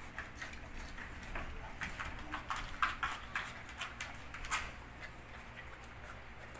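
A Belgian puppy's claws clicking and scraping on a tiled floor as it moves about: an irregular run of sharp clicks, loudest about three and four and a half seconds in, then dying away.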